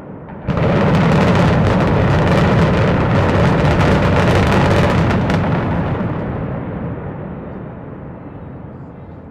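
Building implosion heard across a river: a sudden loud blast about half a second in becomes a dense crackle of rapid explosive reports over a heavy rumble. The rumble dies away slowly over the last few seconds as the high-rise comes down.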